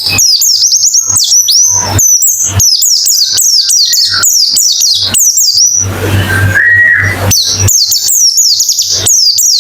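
White-eye (pleci) song played as a fast, continuous chatter: short high chirps, each falling in pitch, several a second, with a brief break about six seconds in where a lower held tone sounds. A steady low hum runs underneath.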